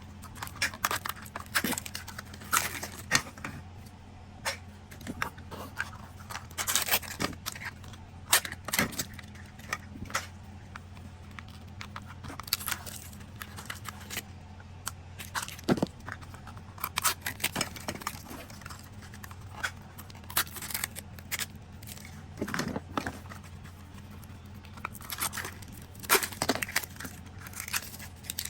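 Zuru Mini Brands capsules being opened by hand: wrappers tearing and crinkling, with irregular plastic clicks, scrapes and rattles of the small toys inside.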